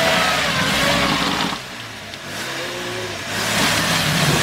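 Off-road SUV's engine revving under load in deep mud, its pitch rising and falling. It eases off about a second and a half in and revs up again toward the end.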